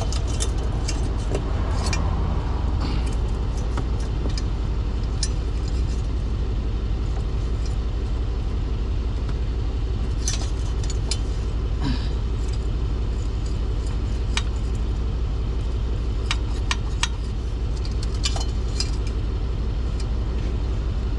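Scattered light clinks and scrapes from the shortened intercooler flex hose and its pipe being handled as it is tried back into place, over a steady low rumble.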